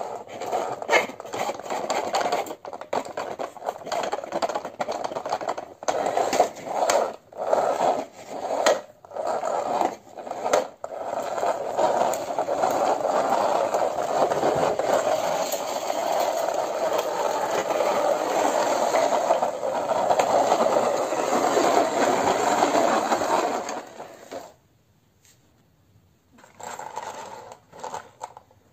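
Plastic toy car pushed back and forth by hand across a hard floor, its wheels scraping and rattling: short strokes at first, then a long steady run, with a short pause near the end.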